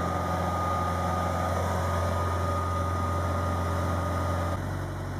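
Steamroller's diesel engine running steadily, a low drone with a thin steady whine over it. The drone changes abruptly about four and a half seconds in.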